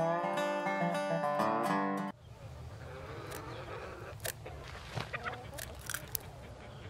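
A short musical jingle of about two seconds for a cartoon logo card, cutting off abruptly. Then a quieter cartoon soundtrack with a few sharp cracks as an eggshell breaks open and a chick hatches.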